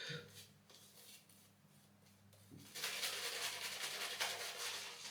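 Synthetic shaving brush swirling lather on a stubbled face, a soft, steady wet rubbing that starts about halfway through after a near-silent pause.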